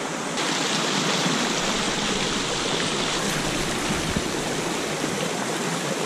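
Small trout stream running over a riffle into a pool: a steady rushing water noise that grows slightly louder about half a second in.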